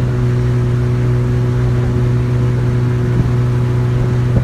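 Outboard motor of a coaching launch running at a steady cruising speed: a constant low drone with a hum of overtones above it.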